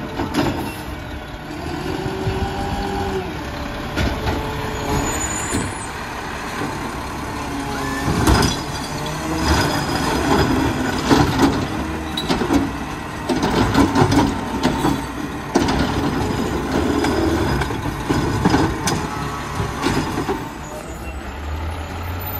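Mack LR garbage truck with a McNeilus ZR automated side-loader working a pickup: the engine runs and rises and falls in pitch as the hydraulic arm grabs, lifts and dumps a cart. Bursts of knocking and clattering from the cart and trash falling into the hopper come in the middle, and a low rumble builds near the end as the truck moves off.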